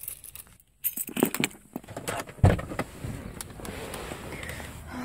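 Keys jangling and clicking, with scattered knocks and one heavier thump about two and a half seconds in, then a steady hiss.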